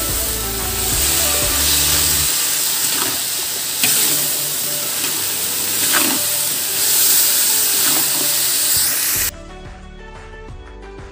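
Tempe, long beans and chilies sizzling in hot oil in a wok, stirred with a metal spatula that scrapes the pan a few times. About nine seconds in the sizzling cuts off suddenly and quieter background music takes over.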